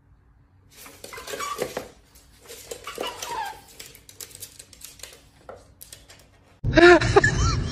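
Scuffling and clatter in two bursts as a tabby cat and a small dog play-fight on a wooden floor. Near the end a much louder sound cuts in suddenly: a quick series of short squeaks, each rising and falling in pitch.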